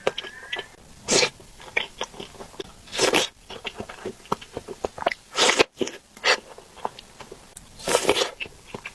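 Close-miked mukbang eating of spicy noodles and dumplings: steady chewing with many small wet mouth clicks, broken by four louder, noisy bursts about two seconds apart.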